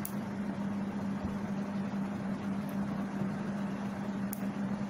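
A steady low hum with a few faint, sharp clicks, one near the start and another about four seconds in. The clicks fit a magnetic micro USB tip snapping onto the cable's magnetic connector.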